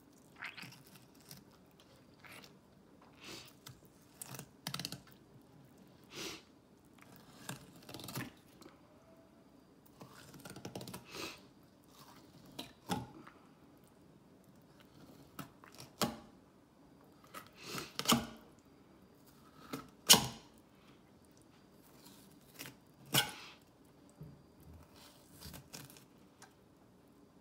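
Fillet knife cutting through a fish on a plastic cutting board: irregular short slicing and scraping sounds as the blade works along the bones, with a sharper knock about twenty seconds in.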